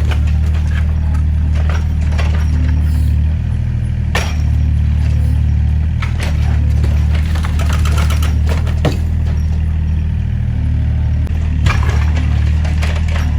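Hydraulic excavator's diesel engine running steadily, with scattered knocks and cracks of a building being broken up.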